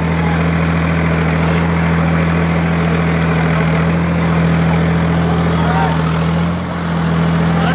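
Preet 955 tractor's diesel engine running steadily while holding the tractor up in a wheelie on its rear wheels, with a brief dip in the engine note about six and a half seconds in. Crowd chatter underneath.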